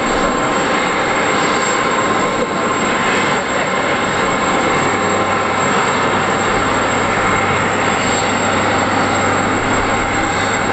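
Boeing 787-8 airliner on the ground during pushback: a steady high whine over an even rush of noise, with a low hum underneath.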